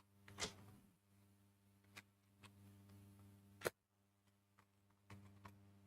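A few faint, scattered clicks and taps from lighting the chalice candle, over a steady low electrical hum.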